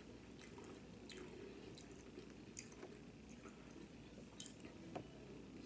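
Faint close-up mouth sounds of someone chewing a soft lobster volcano sushi roll: scattered small wet clicks and smacks, a slightly louder one about five seconds in.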